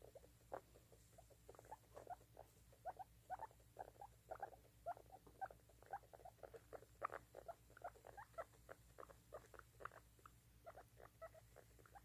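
Baby guinea pig giving a steady run of short, faint squeaks, several a second and unevenly spaced.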